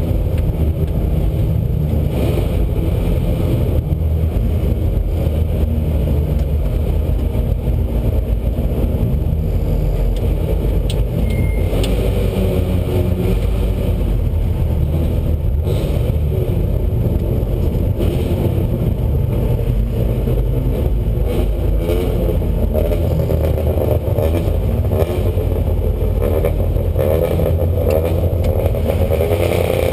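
Lotus Exige Cup 260's supercharged 1.8-litre four-cylinder engine running at low revs, heard from inside the cabin, as the car idles and creeps along a pit-lane queue.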